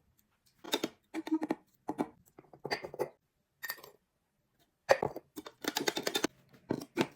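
Handling noises from making a cup of instant coffee: about eight short, irregular bursts of rustling, scraping and clicking, with quiet gaps between them.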